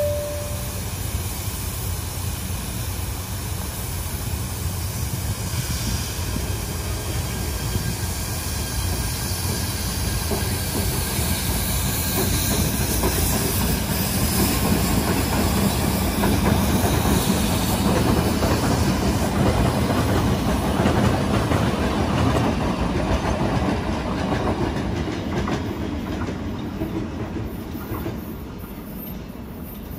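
A train running along the rails through the station, its rumble and wheel clatter swelling to a peak about two-thirds of the way through and then fading near the end. A short falling two-note tone sounds right at the start.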